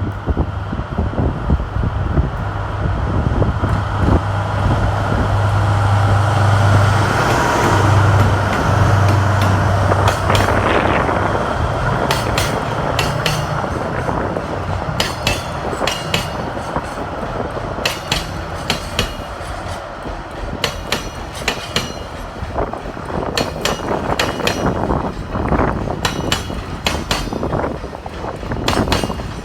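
Freight train passing close by. First the locomotive goes by with a steady low hum, then a long run of wagons clatters past, the wheels knocking rhythmically over the rail joints.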